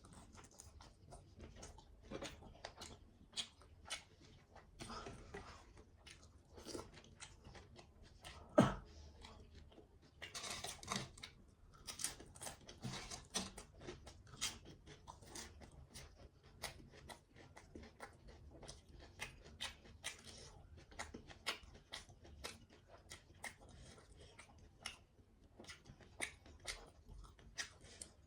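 A person eating close to the microphone: steady chewing with many small wet clicks and smacks, and one louder knock about eight and a half seconds in.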